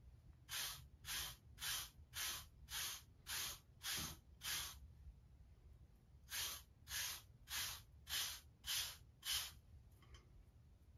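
Hard seven-row wave brush stroking through short waved hair, about two strokes a second. A run of eight strokes, a pause of over a second, then six more.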